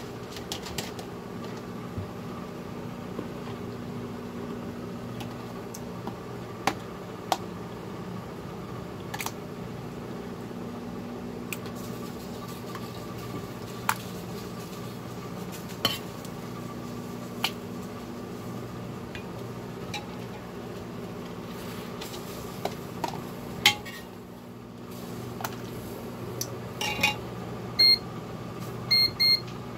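A metal ladle clinks and scrapes against a pot and a plastic storage container as vegetable ragu is spooned across, in scattered sharp knocks that come thicker and louder near the end. A steady low hum runs underneath.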